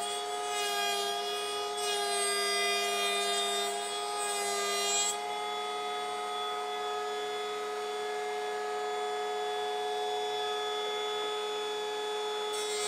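Makita cordless electric planer, mounted upside down as a benchtop jointer, running with a steady high whine. For the first five seconds or so a hardwood board, believed to be meranti, is fed over the cutterhead at a half-millimetre pass, adding a harsh shaving hiss. The planer then spins free until a new pass starts near the end.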